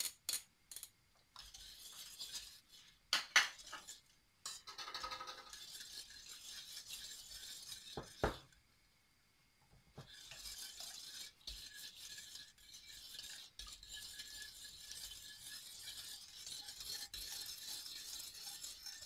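Metal spoon and knife working butter into warm water in a stainless steel pot, with clinks and scrapes against the pot and a steady hiss underneath. The butter is being melted into the water, the first stage of churros dough. The sound drops out briefly about halfway through.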